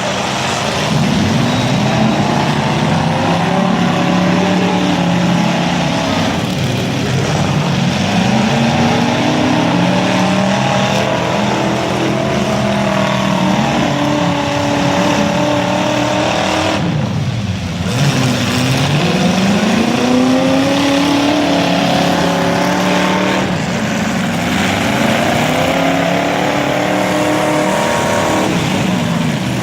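Demolition derby car engines revving, their pitch rising and falling over and over as the cars accelerate and back off in the arena.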